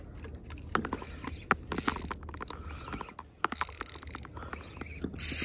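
Shimano Stradic 5000XG spinning reel clicking and ticking as it is cranked against a large hooked fish. Short bursts of high hiss come about two seconds in, about four seconds in, and near the end.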